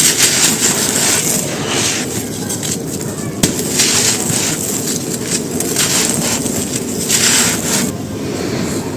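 Soft white stone cylinders being crushed and crumbling on a dry floor, in repeated bursts of crisp crunching, with a sharp snap about three and a half seconds in.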